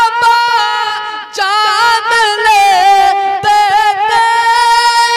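A man's solo voice singing a naat, a devotional Urdu poem in praise of the Prophet, without instruments. He holds long high notes, decorated with wavering, curling turns.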